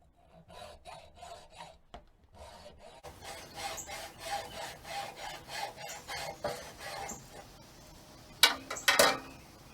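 Hacksaw cutting through a garden-bed stacking stake, with steady back-and-forth strokes of about three a second, followed by a few sharp knocks near the end.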